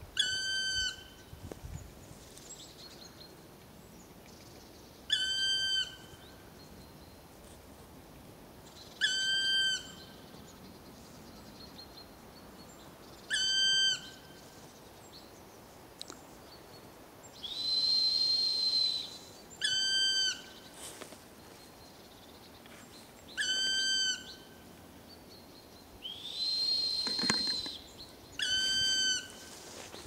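Black woodpecker calling: seven drawn-out, ringing single notes a few seconds apart, each dropping slightly at its end. Twice, a longer steady high whistle answers them, a person imitating the call to draw the bird.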